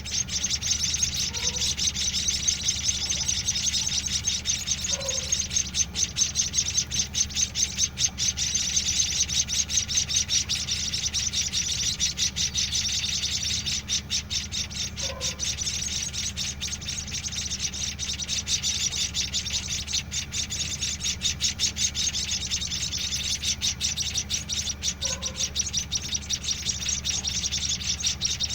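White-headed munia nestlings, about a week old, begging for food with rapid, continuous high-pitched chirping, the call of chicks being hand-fed. A steady low hum runs underneath.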